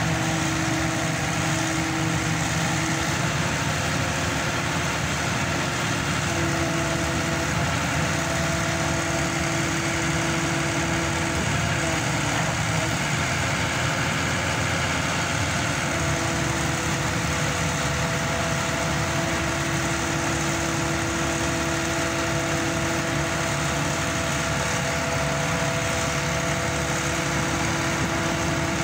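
Hydraulic static pile driver's engine running steadily, with a steady whine over it that drops out briefly a few times.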